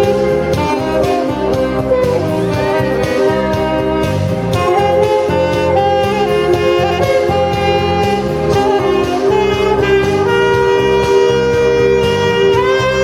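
Saxophone playing a melody of held and moving notes, over an accompaniment with a bass line and a steady beat.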